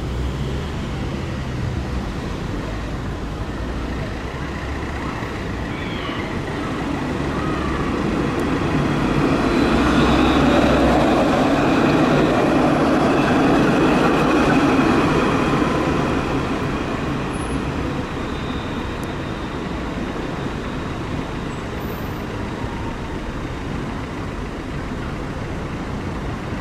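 Alstom Citadis 302 tram passing close by: its running noise swells over several seconds to a peak with a high whine, then fades away. Steady street traffic noise underneath throughout.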